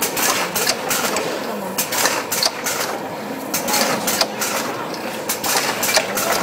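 Automatic aluminium tube filling machine running, its mechanism giving repeated sharp clacks, roughly two or three a second, over a steady mechanical clatter as tubes feed from the hopper onto the conveyor.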